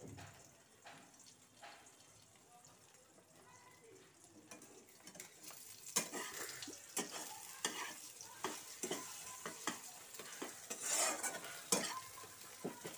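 Beaten eggs sizzling faintly in a non-stick wok, then from about six seconds in a metal spatula scraping and knocking against the pan as the eggs are broken up and scrambled.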